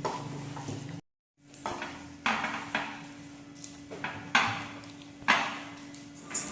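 Utensils clinking and scraping against dishes, with several sharp knocks, the loudest about four and five seconds in. The sound drops out completely for a moment about a second in.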